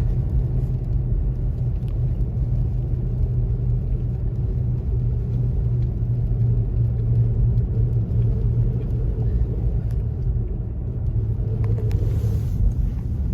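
Steady low rumble of a Toyota Tacoma pickup driving, engine hum and the road noise of its all-terrain tyres heard from inside the cab.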